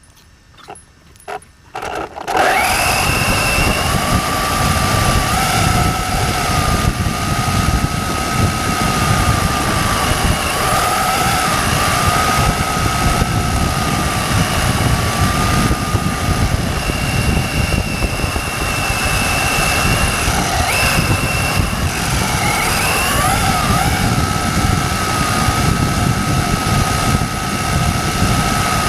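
Hobao Hyper ST radio-controlled truggy driving at speed: a steady high motor whine that wavers slightly with the throttle, over a rough rumbling noise. It starts abruptly about two seconds in, after a few faint clicks.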